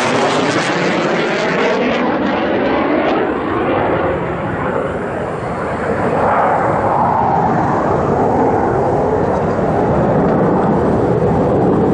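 Canadian CF-18 Hornet fighter jet's twin engines passing low overhead and flying away: loud jet noise with a swirling sweep as it goes over, its high hiss fading after about two seconds while the deep rumble stays loud as the jet recedes.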